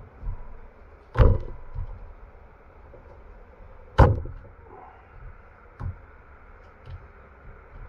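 Sharp metallic knocks and clicks from a Mercury marine distributor being pressed and worked apart by hand on a bench. Two loud knocks come about a second in and about four seconds in, with a few lighter clicks between and after.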